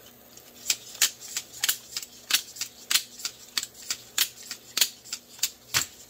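Plastic Cold Steel FGX balisong trainer being flipped, its handles clacking together in sharp clicks about three times a second, starting just under a second in.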